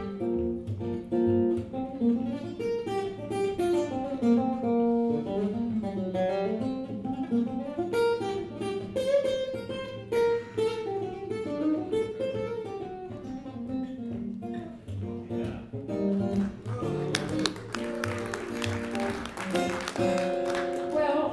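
Acoustic guitar playing an instrumental break, a run of picked and strummed notes. For a few seconds near the end a crackling noise sits over the guitar.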